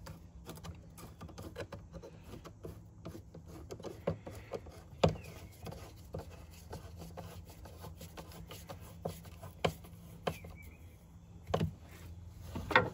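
Faint, irregular clicks and scrapes of a hand tool tightening a metal screw hose clamp on the rubber intake duct, with a few sharper clicks spread through and a steady low hum underneath.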